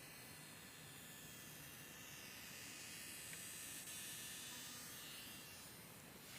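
A small antenna giving off a faint, high-pitched hiss that swells for a few seconds in the middle and then dies back down. This is the unwanted noise the antenna is making.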